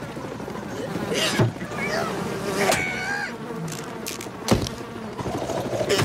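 Flying insect buzzing in a cartoon soundtrack, with squawking cartoon voices and two sharp thumps, about a second and a half and four and a half seconds in.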